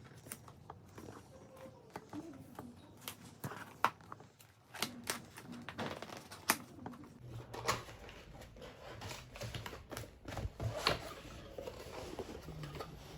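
A cardboard keyboard box being opened and its contents handled by hand: scattered taps, clicks and rustles of cardboard and paper.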